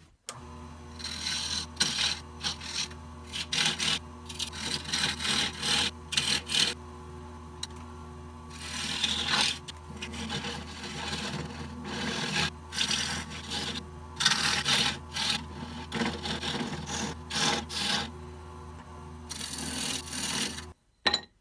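Harbor Freight 10" x 18" bench-top wood lathe running with a steady hum while an Easy Wood Tools carbide tool with a round cutter takes light scraping passes on the underside of a small spinning bowl. The cutting comes in repeated bursts of wood-scraping noise. The lathe's running sound cuts off about a second before the end.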